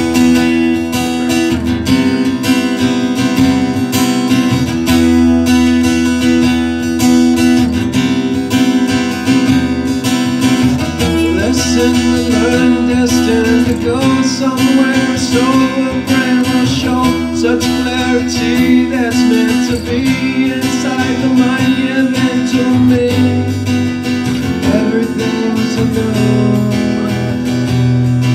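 Acoustic guitar playing the instrumental intro of a song, with sustained ringing notes.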